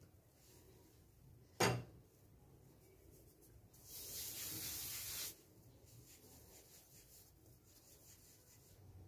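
A hand sweeps dusting flour across a hard worktop: a dry, hissing rub lasting about a second and a half, a little past the middle. Earlier there is a single short knock, as of the dough ball being set down on the counter.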